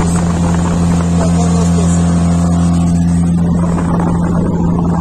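Small tiller-steered outboard motor on an inflatable boat running steadily at speed, a constant drone.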